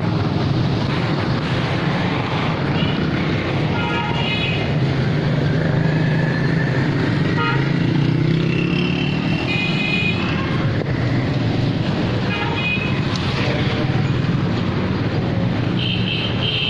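Busy street traffic: a steady low engine drone, with short vehicle horn beeps several times, the last and strongest near the end.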